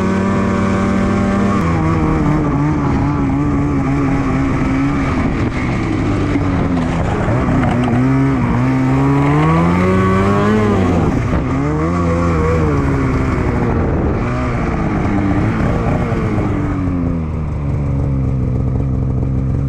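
Polaris Switchback Assault 850 snowmobile's two-stroke twin engine running under way. Its note drops about a second and a half in, rises and falls again and again with the throttle through the middle, and settles to a steadier, lower note near the end.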